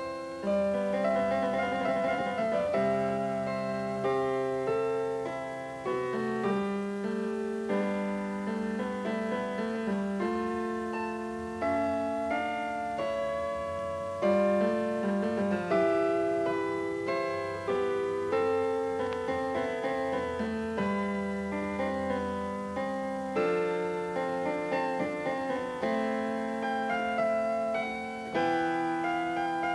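Solo piano music: a flowing run of struck notes and chords, each dying away after it is played.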